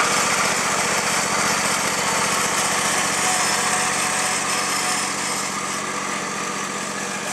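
Riding lawn tractor's engine running steadily as the tractor drives off, growing gradually quieter over the last few seconds.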